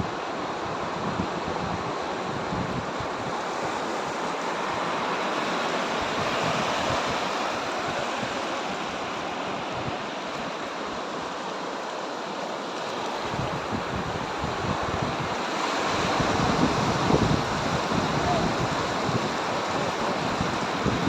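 Sea surf washing continuously onto a beach, swelling louder about three-quarters of the way through, with wind rumbling on the microphone.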